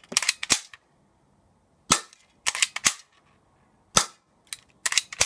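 G1 airsoft pistol firing repeatedly, a string of sharp cracks: a quick run of three at the start, one about two seconds in, another quick run of three soon after, one near four seconds and a few more near the end.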